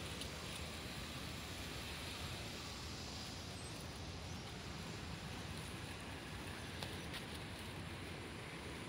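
Steady outdoor street noise: a low, even hum of distant road traffic with no distinct events.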